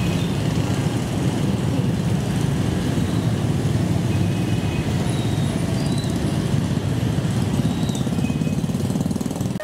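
KRL electric commuter train rolling along the track as it pulls away, a steady low rumble of wheels on rails.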